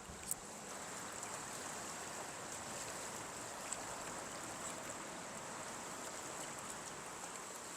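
Steady rush of flowing river current in high water, with a faint click just after the start and another near four seconds in.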